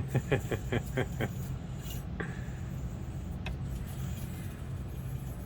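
A short burst of a man's laughter, about seven quick 'ha' pulses, then a low steady hum with a couple of faint clicks.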